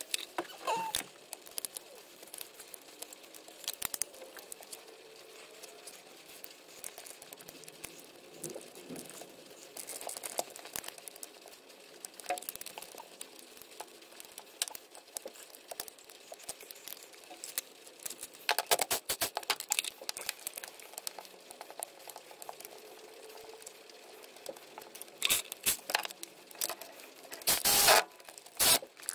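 Hand tools working on bolts: scattered clicks and clinks of metal, with short runs of rapid clicking a little past halfway and again near the end, as the bolts are tightened.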